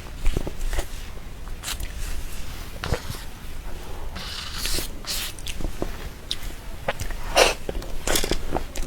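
Close-miked eating sounds of soft cream cake: scattered wet mouth clicks and smacks, with a few louder breathy bursts.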